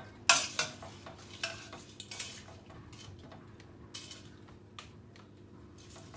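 Metal spoon clinking and scraping against the side of a stainless-steel pot as dry spaghetti is stirred and pushed down into the water. There are several sharp clinks in the first second and a half, then fewer and fainter ones.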